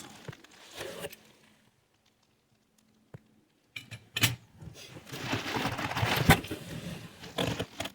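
Metal belt buckles clinking and rattling as they are handled and rummaged through in a box, with a couple of sharp metal clinks. There is a silent gap of about two seconds near the start.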